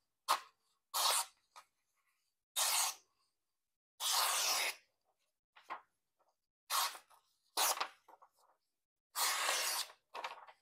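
A very sharp CPM 20CV folding-knife blade slicing through printer paper: about eight short cutting strokes with pauses between, one longer cut about four seconds in.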